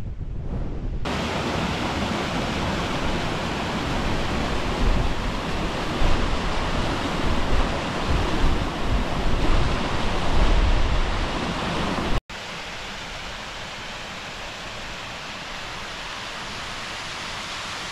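Mountain waterfall rushing over rocks: a loud, steady hiss of falling water, with gusts of wind on the microphone in the first part. After a sudden cut about two-thirds through, a second waterfall is heard as a quieter, even rush.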